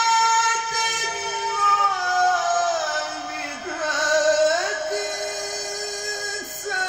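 A man reciting the Quran in the melodic tilawah style into a microphone, holding long notes and gliding down and up between pitches, with a short break near the end.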